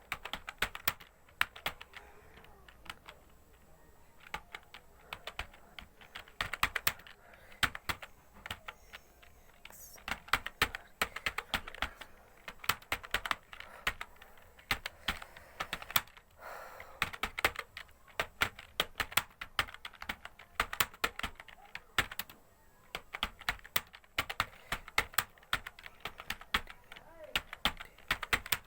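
Fast typing on a computer keyboard: the keys click in quick runs, broken by short pauses.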